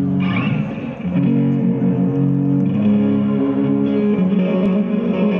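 Guitar-led music with sustained chords that change about every second.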